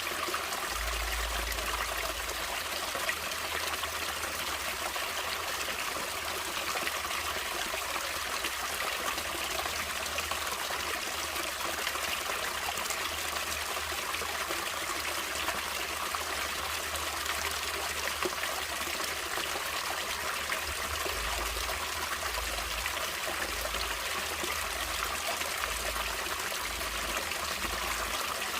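Natural stream water running and trickling steadily, an even rushing without breaks.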